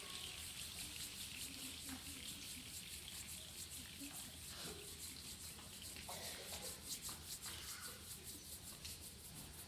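A large choir rubbing their palms together to imitate rain dying away at the end of a body-percussion rainstorm: a soft, even hiss made of many small strokes.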